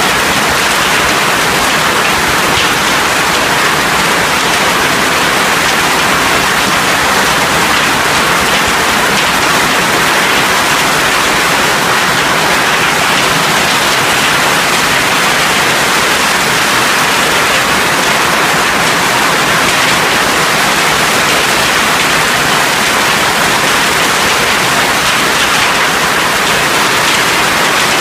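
Severe hailstorm: hailstones and heavy rain pelting paved ground, with runoff pouring off an awning, a loud, steady downpour that does not let up.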